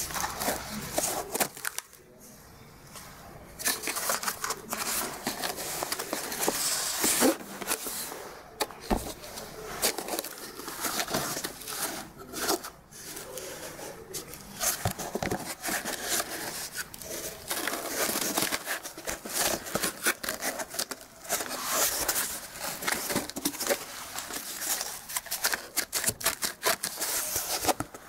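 Pipo Smart S1 giving off rapid, irregular popping and crackling, in clusters of clicks with a short lull about two seconds in.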